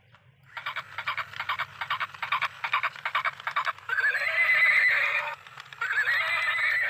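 Plastic electronic toy horse playing recorded clip-clop hoofbeats, about five a second, then two whinnies with a wavering pitch.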